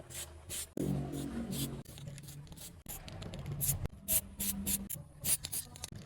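Short, irregular scraping strokes: hand work on the metal of an old two-wheel ship's pulley under restoration.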